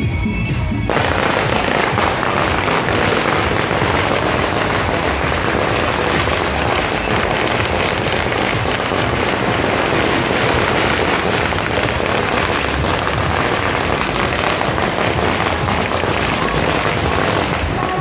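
A long string of firecrackers going off in a dense, unbroken crackle, starting about a second in and keeping on to near the end. Procession music is heard before the crackle starts.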